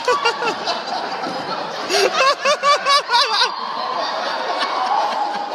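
A man laughing close by, with a quick run of ha-ha-ha beats, about four a second, from about two seconds in, amid audience laughter.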